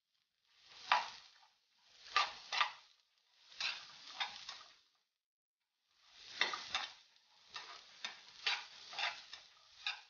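Spatula stirring and turning chopped ginger in a nonstick frying pan: scraping, rattling sweeps with small clicks, in bursts with short pauses between them, the strokes coming faster near the end.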